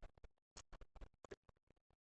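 Close-miked eating sounds: chewing and lip smacking as a run of soft, irregular mouth clicks.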